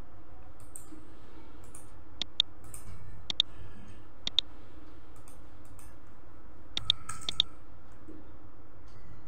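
Computer mouse clicking: sharp clicks in close pairs, about five times, with a few softer ticks between them, over a steady low hum.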